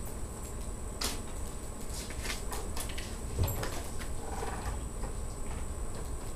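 Classroom room noise: a steady low hum with a faint high whine, scattered light clicks and taps, and a soft thump about three and a half seconds in.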